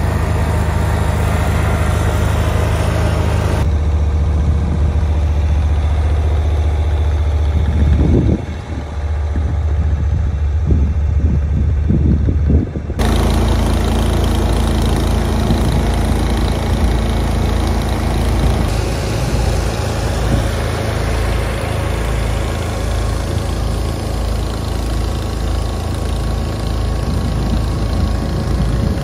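Small garden tractor engines running steadily, in three stretches joined by sudden cuts about four and thirteen seconds in.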